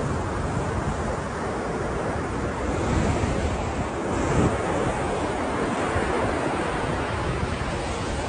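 Ocean surf: a continuous wash of breaking waves, swelling a little louder about three and four and a half seconds in.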